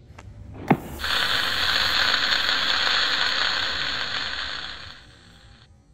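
A sharp click, then a loud, steady hiss lasting about four seconds that fades and stops near the end: an outro sound effect over the logo.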